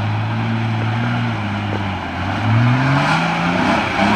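Nissan 4x4's engine pulling through deep mud, holding a steady note, then revving up with a rising pitch about two seconds in as the truck climbs toward the camera.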